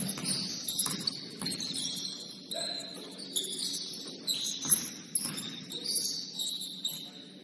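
Basketball shoes squeaking on the court: many short, high squeaks coming and going as players cut and stop, with a few thumps of the ball or feet in between.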